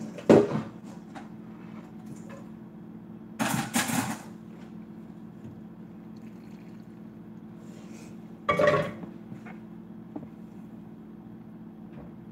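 A metal pot of cooked macaroni clanks sharply near the start as its water is drained at the sink. A short splashy burst comes a few seconds later, and another clatter about eight seconds in as the pasta is tipped from the pot into a skillet of cheese sauce. A steady low hum runs underneath.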